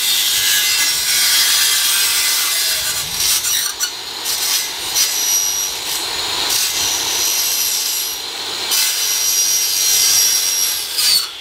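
Handheld circular saw cutting through aluminium tube: a loud, high, hissing cut with a thin whine in it, easing off briefly twice as the blade is worked along the cut, and stopping at the end.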